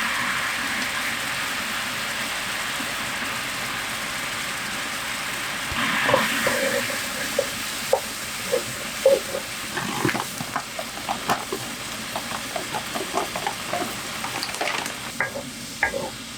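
Food sizzling in a hot pan, with a fresh surge of sizzling about six seconds in. Through the second half a utensil stirs and scrapes the pan with many short, irregular taps.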